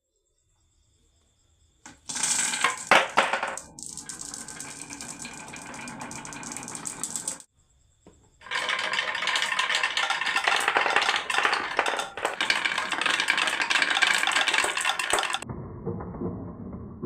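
Marbles clattering down a wooden marble run: a dense rattle of many clicks, starting about two seconds in, breaking off briefly, then running again. Near the end it changes to duller thuds.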